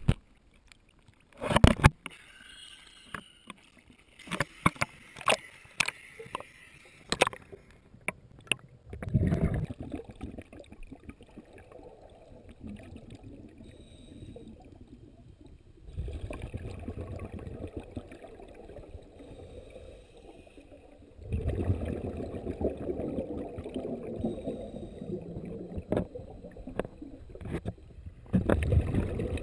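Water heard through a GoPro Hero 2's sealed dive housing. Sharp knocks and splashes come first as the camera rides the lake surface. Once under, a low, muffled rushing of scuba exhaust bubbles swells and fades in long surges.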